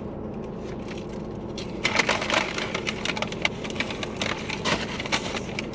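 Crispy Bojangles fried chicken thigh being pulled apart by hand, its battered crust crackling and crunching in a rapid run of sharp cracks that starts about two seconds in.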